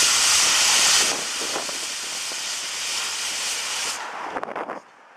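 Steam locomotive 18 201 hissing as steam escapes at its cylinders. The hiss drops in level about a second in, then dies away near the end, leaving a few faint clicks.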